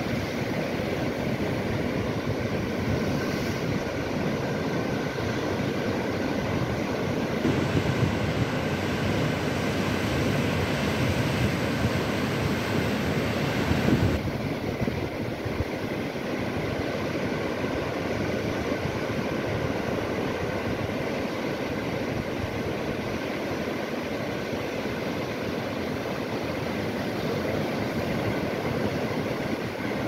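Sea waves washing against the shore in a steady, continuous rush. A fuller, brighter surge builds from about a quarter of the way in and cuts off suddenly about halfway through.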